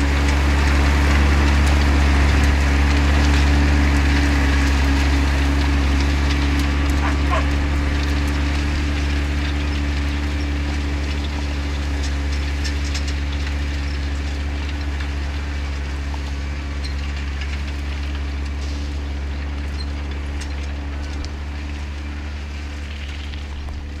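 New Holland 6050 tractor's engine running steadily under load while pulling a four-furrow plough through the soil, its even drone gradually getting quieter as it moves away.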